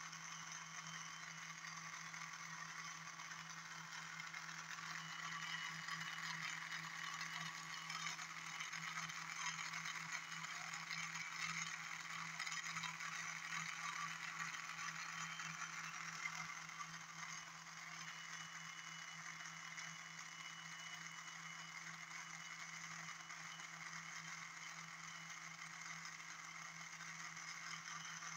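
Bedini SHK pulse motor/generator running steadily: a steady low hum with a whirring rattle from its spinning magnet rotor, somewhat louder for a stretch in the middle.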